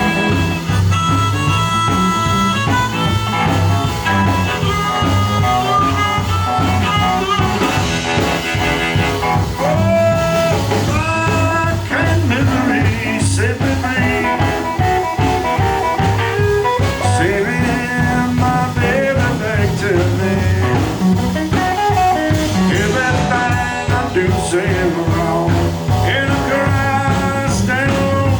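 Live blues band playing a swinging instrumental passage with no singing, over a steady bass line.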